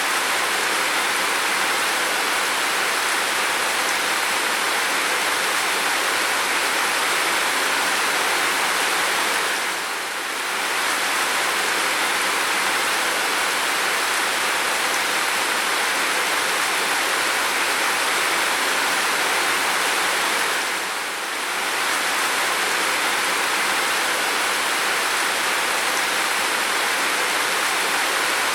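Heavy rain falling in a steady, dense hiss that dips briefly twice, about eleven seconds apart.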